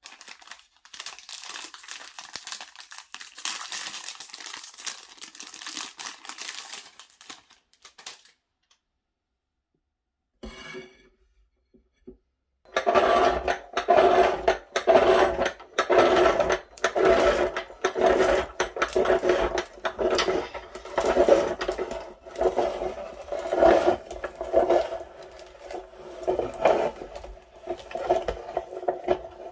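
Electric meat grinder running, its motor holding a steady hum while it crunches through Kinder Surprise chocolate eggs; the grinding starts about 13 seconds in. Before it there are several seconds of crackly rustling, then a pause.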